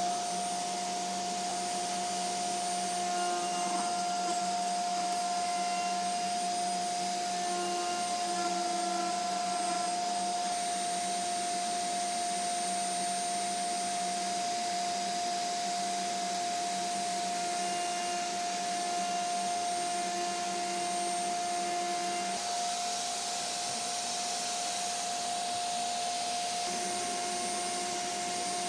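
Table-mounted wood router running at a steady high speed while a small plastic disc is fed by hand around the bit to cut it round; the motor's whine holds at one pitch throughout, with faint shifts in the cutting sound as the piece is turned.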